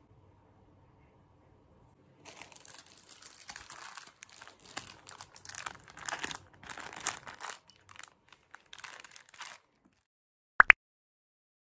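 Packaging crinkling and rustling as it is handled, in irregular bursts for several seconds, then two quick, sharp clicks near the end.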